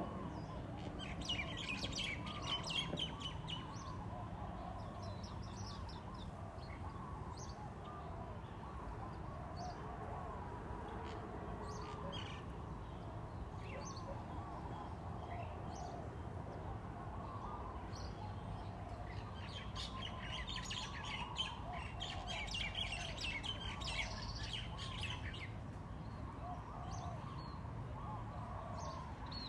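Birds chirping and twittering in two busy spells, one near the start and a longer one past the middle, with scattered single chirps between, over a steady low background hum.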